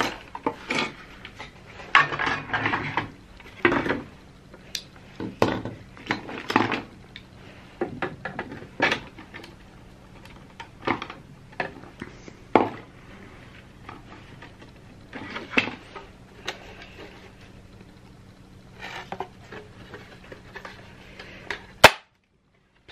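Hard plastic housing parts of a hand scanner being pulled apart and handled: irregular clacks and knocks of plastic against plastic and the bench. A sharp click comes near the end, then the sound cuts out abruptly.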